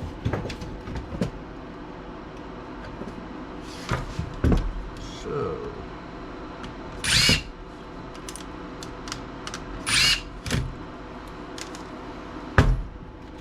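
Power screwdriver whirring in two short half-second bursts, backing out laptop screws, with clicks and knocks of screws and plastic and metal laptop parts being handled; one sharp knock near the end is the loudest.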